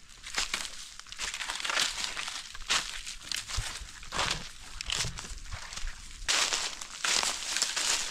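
Footsteps crunching through dry leaf litter, an uneven run of crunches about one or two a second.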